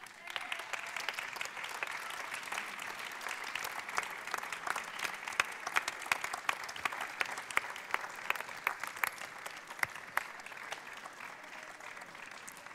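Audience applauding: a dense patter of many hands clapping, fading toward the end.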